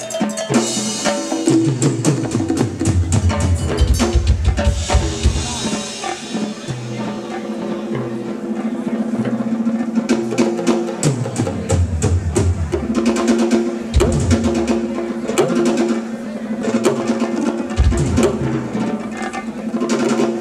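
Live drum kit and hand-played percussion drumming over electronic music from DJ decks, with deep bass notes and sustained synth tones. Drum rolls and a wash of cymbals fill the first few seconds.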